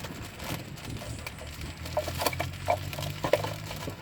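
Metal-backed brake pads clicking and knocking against the caliper bracket and its clips as they are fitted into a Honda Odyssey's front brake: several sharp clicks, most of them in the second half.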